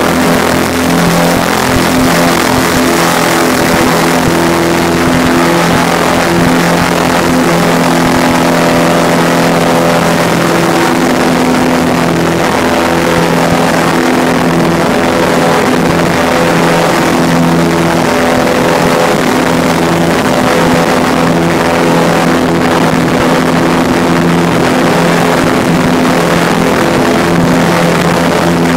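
Airboat's engine and air propeller running at speed: a loud, steady drone with a rushing noise over it.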